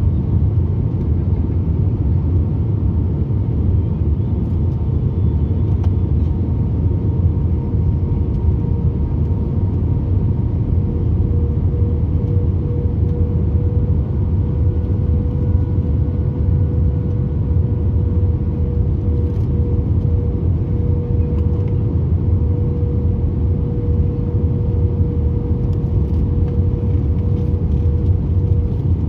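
Steady low roar of an Airbus A320-family jet airliner's engines and rushing air, heard inside the cabin during the descent to landing, with a steady hum that grows stronger about a third of the way in.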